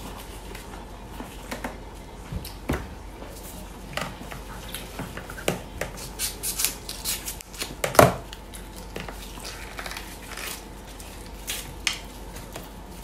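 Scattered clicks, taps and scrapes of a knife cutting and peeling boiled bamboo shoots against a plate. The loudest knock comes about eight seconds in.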